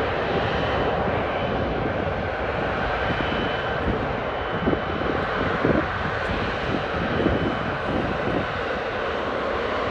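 Boeing 777 jet engines running with a steady, dense rushing noise and a faint high whine. There is gusty low buffeting on the microphone in the middle few seconds.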